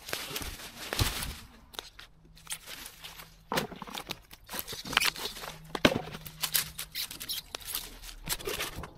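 Dry twigs and leaf litter crackling and rustling as a litter picker is pushed in among them, with a few sharp snaps and clicks.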